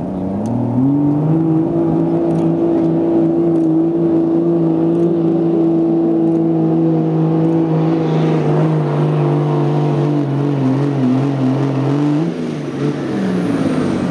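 Pickup truck engine revving up within the first second and held at steady high revs as it pulls under load in a truck pull, dropping off about twelve seconds in.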